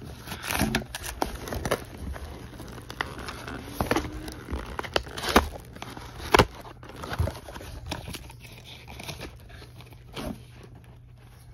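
A small cardboard product box being handled and opened: rustling and crinkling packaging with scattered sharp clicks and knocks, the loudest about five and a half and six and a half seconds in.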